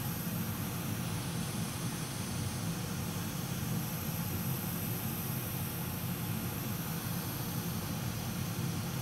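Hot air rework station blowing steadily onto a Wi-Fi module to melt its solder for removal, a continuous even rush of air.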